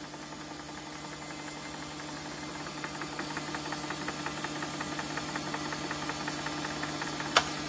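Sony BVH-500 portable 1-inch helical-scan videotape recorder rewinding a tape with its video head spinning: a steady mechanical hum with a fast, even ticking that comes in a couple of seconds in and grows slowly louder. A single sharp click near the end.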